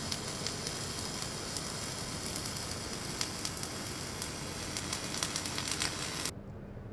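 Electric arc welding on steel: a steady, crackling sizzle from the arc, with spatter popping. It cuts off suddenly about a second before the end, leaving only background hum.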